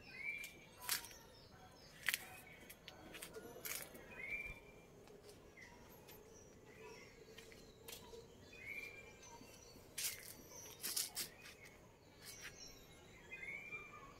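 Small birds chirping in quiet outdoor ambience: short curved chirps repeating every second or two. A few sharp high ticks stand out above them, about a second in, around two and four seconds, and again around ten to eleven seconds.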